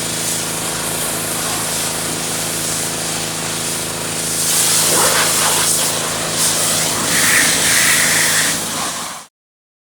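Pressure washer running with a steady motor-and-pump hum while its water jet hisses, the spray growing louder about halfway through, then cutting off suddenly near the end.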